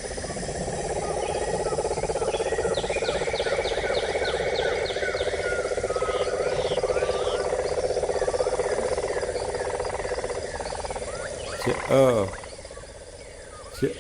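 Animal chorus: a steady, finely pulsing drone of frogs or insects with repeated short chirps over it. About twelve seconds in, a short, loud call falling in pitch stands out, and a sharp click comes just before the end.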